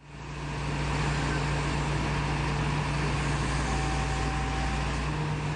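Truck engine running steadily to power the truck's hydraulic grapple crane as it lowers a log; a steady low hum that fades in over the first second.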